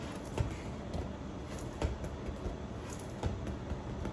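A light plastic football knocking and rolling on a tiled floor: a few soft, irregular taps over a steady low background rumble.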